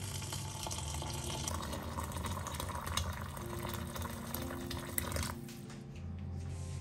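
Boiling water poured in a thin stream into a glass bowl of raisins, splashing as the bowl fills; the pour stops about five seconds in.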